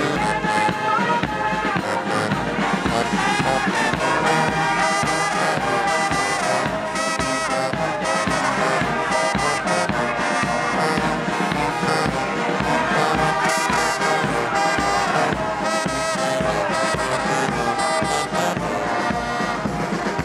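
Brass band music playing without a break, trumpets and trombones carrying the tune.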